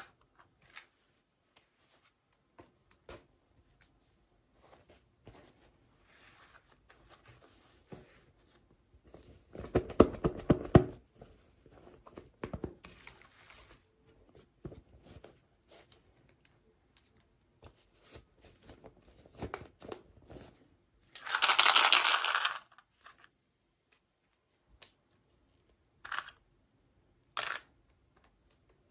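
Packaging being handled and opened by hand: scattered small clicks and crinkles, a dense crackling rustle about ten seconds in, and a longer tearing rip a little past twenty seconds.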